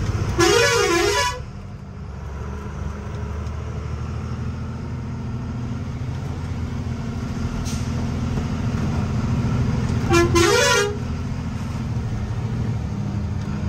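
Truck engine running steadily as the truck crawls forward in slow traffic, with a loud multi-tone truck horn blown twice: for about a second near the start and again briefly about ten seconds in.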